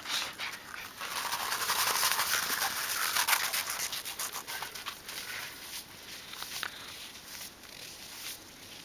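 Footsteps crunching and scuffing through dry snow, a dense scraping hiss for a few seconds starting about a second in, then thinning to scattered crunches.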